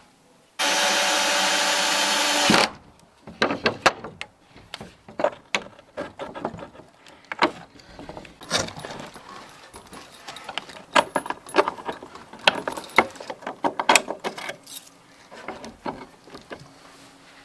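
A power drill runs steadily for about two seconds, then a long run of irregular knocks and clicks follows, like tools and wood being handled.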